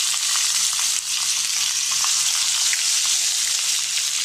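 Pieces of hilsa fish sizzling in hot oil in a frying pan as they are laid in one by one: a loud, steady frying hiss with small crackles.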